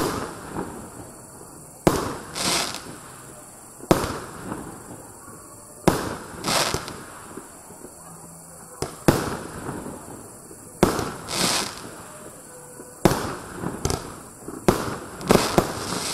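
Consumer cake firework firing shot after shot, about one every two seconds: each a sharp launch bang from the tube, then the shell bursting overhead about half a second later. Near the end the shots come quicker, several in a row.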